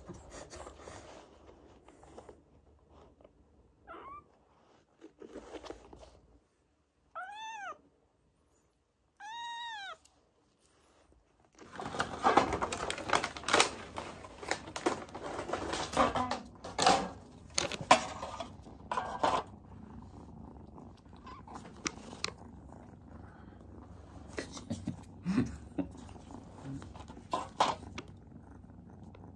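Kittens mewing: a short rising mew about four seconds in, then two clear meows about two seconds apart, each rising and falling in pitch. From about twelve seconds on, a dense patter of clicks and scuffling.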